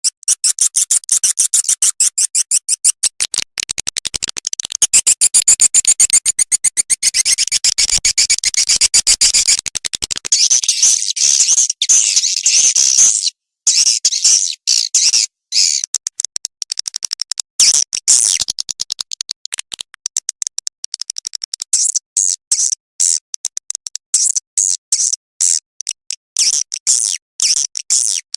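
Recorded edible-nest swiftlet calls: a fast, high-pitched chattering twitter of rapid clicks, broken by short pauses. It is a lure sound played to call swiftlets into a nesting house.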